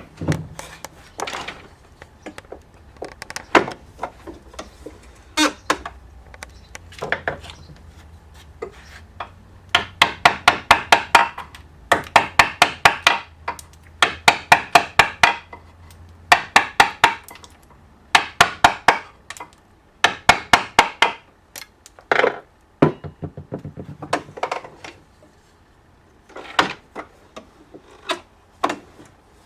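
A hand tool working wood held in a vise: runs of strokes about a second long, each a quick train of ticks, with separate sharp knocks before and after.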